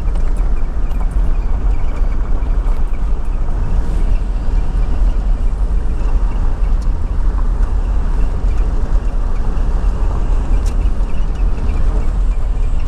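A vehicle driving along a dirt campground track: steady engine and tyre rumble.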